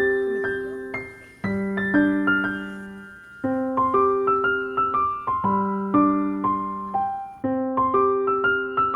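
Background music: a gentle solo piano (or electric piano) piece, a low chord struck about every two seconds with a simple melody of single notes above it, each note dying away.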